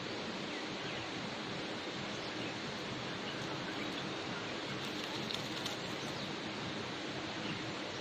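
Steady, even outdoor hiss of background noise, with a few faint high chirps from small birds about five seconds in.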